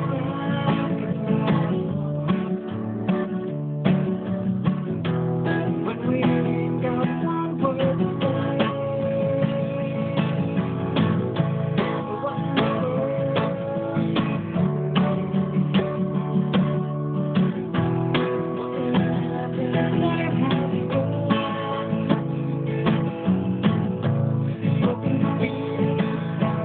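Acoustic guitar music: strummed chords with picked melody lines, an instrumental passage with no vocals.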